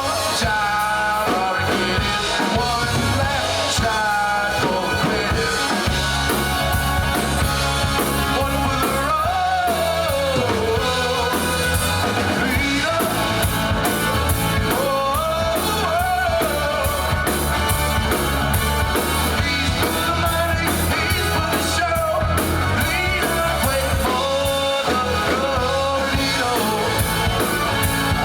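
A rock-and-roll song with a singer, drums and guitar playing steadily on a push-button radio.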